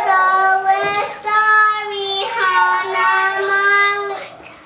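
A young girl singing her own made-up tune in long, held notes, with short breaks about a second in and about two seconds in; the singing stops a little after four seconds in.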